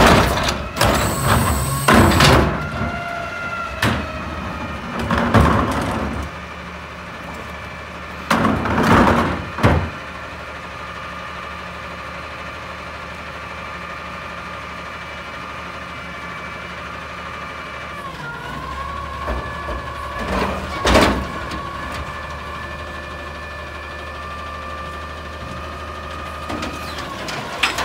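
Front-load garbage truck with a carry can: a few loud bangs and clatters of a cart and the can in the first ten seconds, over the diesel engine and a steady hydraulic whine. About two-thirds of the way through, the engine speeds up and holds there while the hydraulic arms raise the carry can over the cab, with one more bang a few seconds later.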